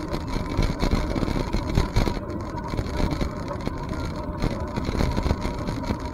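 Rumbling wind noise on the microphone while riding a bicycle, with many small knocks and rattles from the bike over the trail surface.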